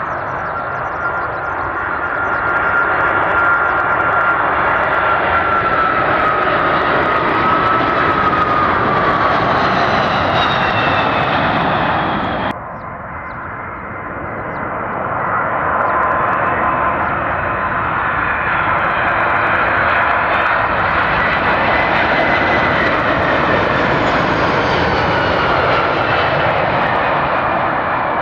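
Jet aircraft engines at high power going past close by: loud jet noise with a high whine that bends down in pitch as the aircraft passes. About twelve seconds in the sound cuts off abruptly to a lower level, then swells again as a jet passes once more, its whine rising and then falling away.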